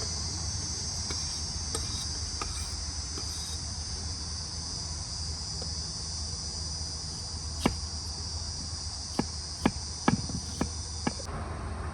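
Crickets chirring steadily in a high-pitched chorus. About six sharp knocks come in quick succession in the second half, and the chirring cuts off abruptly near the end.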